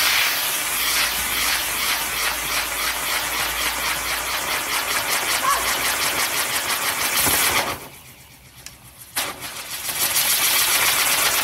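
Catherine wheel firework spinning, its fuses burning with a loud rushing hiss and a fast, even pulse. The hiss drops away about eight seconds in, then starts up again about a second later.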